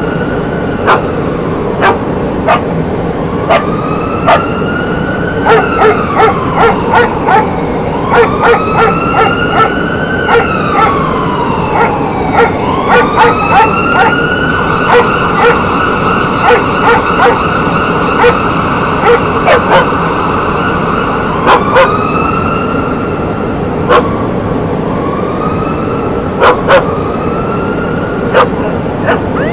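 Outdoor emergency warning siren wailing in slow sweeps: the pitch rises, sometimes holds steady for several seconds, then falls away. A dog barks repeatedly over it.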